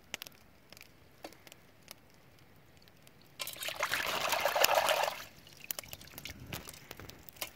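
Water splashing and sloshing in a metal cooking pot as a hand swishes a cleaned Chinese mitten crab through it to rinse it, starting about three and a half seconds in and lasting about two seconds.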